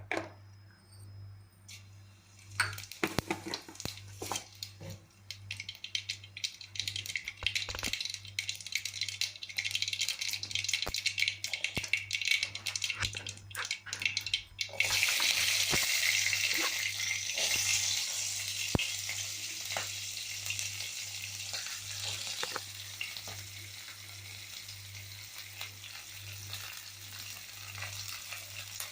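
Hot oil in a pan crackling with many sharp pops, like mustard seeds spluttering in a tadka. About halfway through it turns into a sudden loud steady sizzle, as when food hits the hot oil, which slowly eases off.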